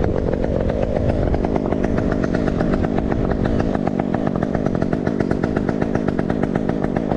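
Chainsaw engine running at a steady speed, with no revving up or down.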